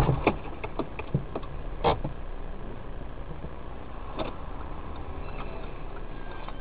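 Car engine idling, heard from inside the cabin through a dashcam, a steady low rumble with scattered sharp clicks, most of them in the first two seconds.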